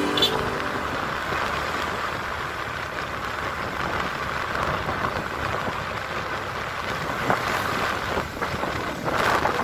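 Steady rush of wind and road noise from a small open vehicle, probably a motorcycle or tricycle, moving along a street, with wind buffeting the microphone.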